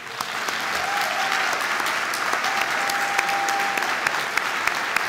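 Audience applauding, a dense steady clatter of many hands with sharp individual claps. A thin steady tone sounds over it for about a second and a half around the middle.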